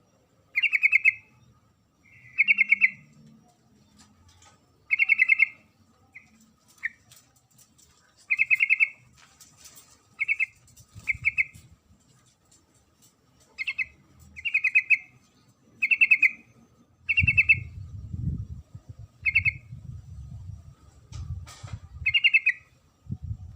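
Yellow-vented bulbul calls, given by a female to call a male: short, rapidly trilled notes repeated every one to two seconds. A low rumble runs under the later calls.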